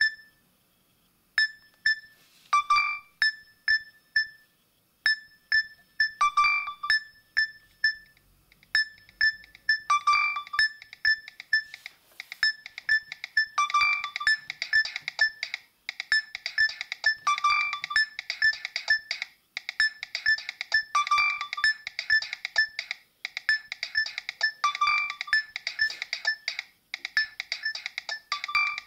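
Nokia 7250i mobile phone playing a ringtone: a synthesized melody of short beeping notes. It starts sparse and evenly spaced, then from about ten seconds in becomes a busier phrase that repeats every few seconds.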